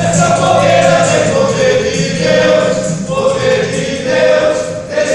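A choir singing a gospel hymn in long held notes, phrase after phrase.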